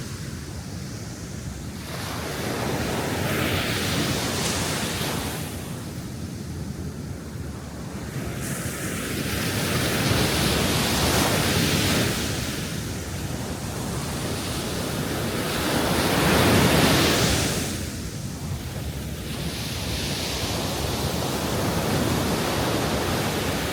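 Ocean waves breaking on a shore, the surf swelling and easing in slow surges every few seconds, the loudest wash about two-thirds of the way through.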